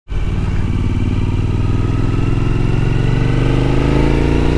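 Suzuki V-Strom motorcycle engine running under way, its pitch rising slowly and steadily as the bike gathers speed.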